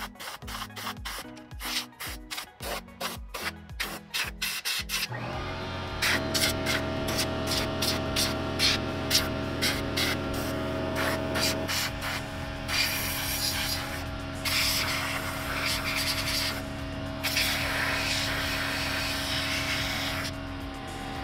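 Air blow gun on a Ridgid 6-gallon pancake compressor blowing dust out of a PC: quick short bursts of air at first, then about five seconds in the compressor's electric motor kicks on and runs with a steady hum under further bursts and several longer blasts of air. The compressor is close by and loud.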